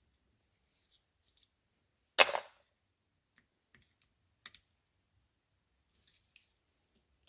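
Sharp clicks and taps of a screwdriver and small metal air jets being worked out of a carburetor body, with one loud knock about two seconds in and a smaller double click a little later.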